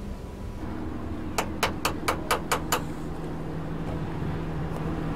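Boat engine running steadily at low speed, with a quick run of seven sharp knocks, about four a second, a little over a second in.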